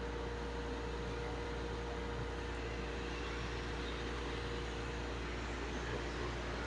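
Dust collector running steadily: an even rushing of air with a constant hum underneath.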